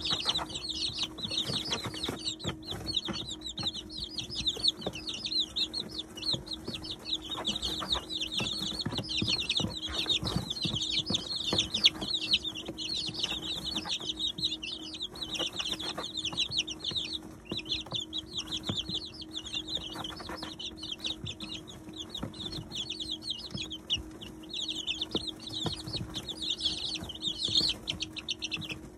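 A brood of 19-day-old chicks peeping continuously, many high chirps overlapping. There is a steady low hum underneath, and scattered light taps as the chicks peck at grain.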